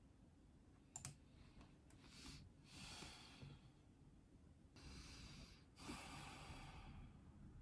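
A woman's deep, slow exhales from the belly, heard twice as soft, breathy sighs. Before them, about a second in, a single click of a computer mouse.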